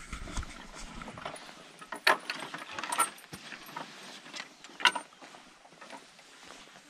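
A weathered wooden picket gate being unlatched and pushed open, giving three sharp clacks of the latch and boards among softer rattling and handling noise.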